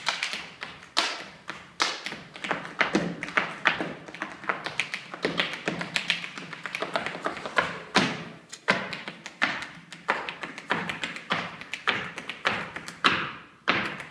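Hard-shoe Irish step dancing: a rapid, irregular run of shoe taps on the stage floor, with several louder stamps.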